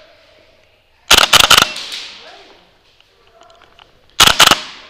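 Airsoft gun firing two short bursts of rapid shots, one about a second in and another near the end, each followed by a brief echo off indoor walls.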